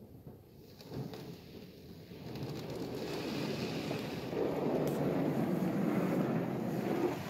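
D&S IQ touch-free car wash spraying foam onto the car, heard from inside the cabin as a rushing hiss on the glass and body. It builds from about two seconds in and is loudest in the second half.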